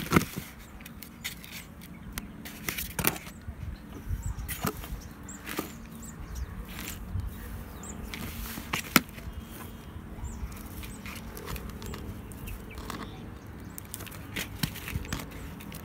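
Hands working soil mix into a plant pot: irregular knocks, scrapes and rustles of the mix and the pot, with a sharper knock about nine seconds in.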